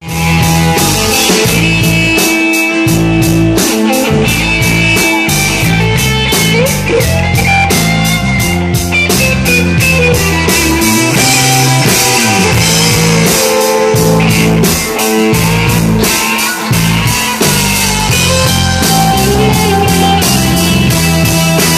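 Live rock band playing: electric guitar over a steady drum-kit beat.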